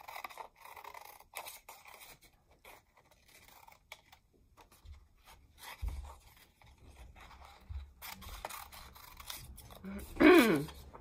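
Scissors snipping through construction paper in a series of short cuts. Near the end comes a brief, louder voice sound.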